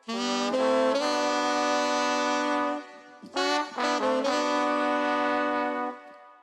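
Saxophone and brass horns playing a ska melody in unison: two phrases of short notes, the second opening with a quick rising run, each ending on a long held note, with a short break between them.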